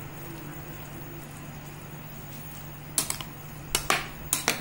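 A metal ladle stirring cooked rice and dal in an aluminium pressure cooker. It is soft at first, then knocks sharply against the pot about six times in the last second and a half. A steady low hum runs underneath.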